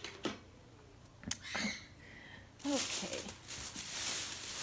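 A few small knocks and clicks of things being handled, then from about halfway a steady, crinkly rustle as packaging is rummaged through.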